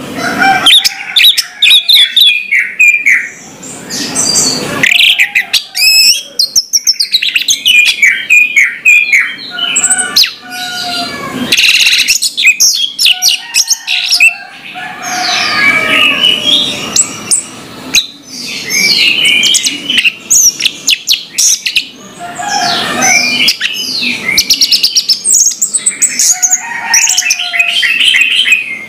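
Orange-headed thrush singing a loud, varied song of quick whistled and chattering phrases, with brief pauses between phrases.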